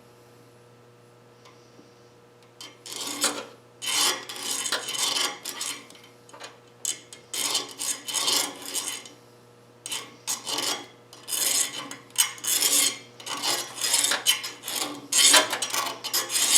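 Repeated rasping strokes of a piston compression ring's end being filed against a file clamped in a vise, starting after a couple of seconds of quiet and coming in short runs. The ring's end gap is being widened.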